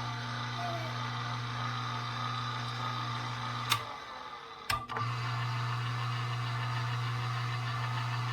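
Omega masticating juicer's electric motor running with a low, steady hum. It stops with a click a little under four seconds in, and after another click starts again about a second later and runs on.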